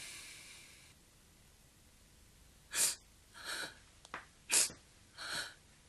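A woman crying without words: one long breath at the start, then after a pause a run of about five sharp, gasping breaths and sniffs in quick succession.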